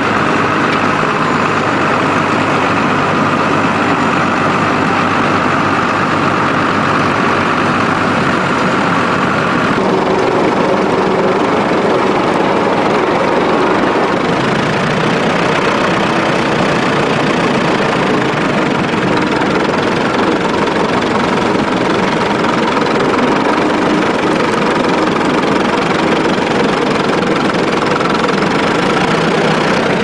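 Tractor engines running under load as they pull ploughs through stubble: first a modern tractor with a reversible plough, then vintage tractors with trailed ploughs. The engine sound changes abruptly about ten seconds in and again about fourteen seconds in.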